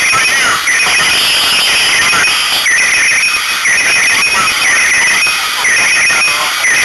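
Electronic alarm beeping repeatedly, about once a second, with a warbling high tone, over a loud steady hiss.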